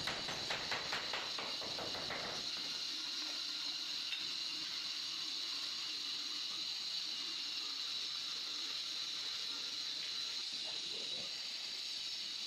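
Mason's trowel working mortar on a stone stair tread: a quick run of short scraping or tapping strokes, about four or five a second, that stops after about two seconds. A steady high hiss sounds under the strokes and carries on after them.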